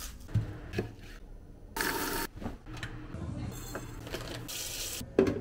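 Close-up kitchen handling sounds: a few light clinks and knocks, with bursts of rustling from plastic grocery packaging being unpacked, and a sharper knock near the end.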